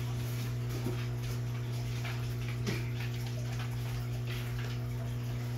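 Steady low hum of aquarium equipment, with a faint crackle of ticks from air bubbles rising off an air stone and two faint short squeaks about one and almost three seconds in.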